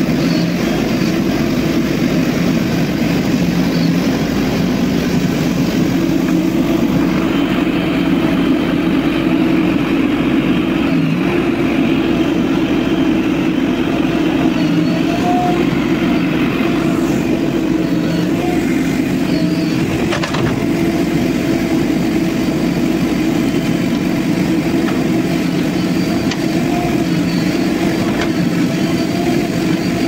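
JCB backhoe loader's diesel engine running steadily under load while the machine digs earth.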